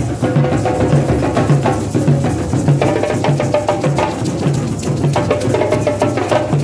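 A group of djembes played by hand together with tall rope-tuned bass drums struck with a stick, keeping a steady interlocking rhythm of low drum strokes under sharp high slaps.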